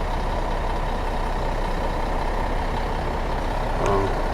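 Tour bus engine idling: a steady low rumble.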